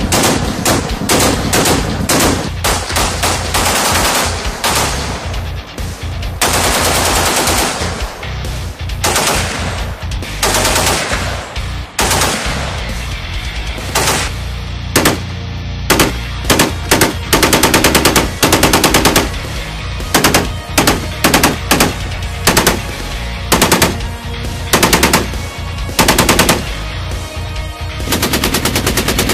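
S&T Motiv K6 .50-calibre heavy machine gun on a tripod, firing bursts of rapid, evenly spaced shots. Some bursts are short and some run a couple of seconds, with brief pauses between them.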